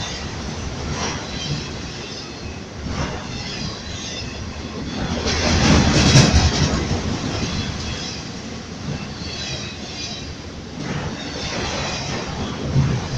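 Freight train rolling past, its wheels clacking over the rail joints with short bursts of high wheel squeal. It swells loudest about six seconds in.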